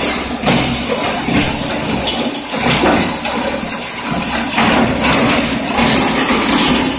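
Stainless-steel bone crusher running with a loud, steady grinding din, broken by irregular sharp cracks and knocks as bone is fed in and broken up.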